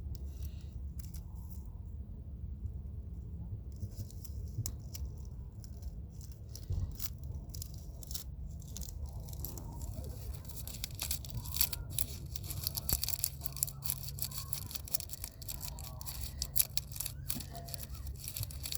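Crackling, rustling and tearing sounds of decorations being handled and pushed into place, growing denser about ten seconds in, over a steady low rumble.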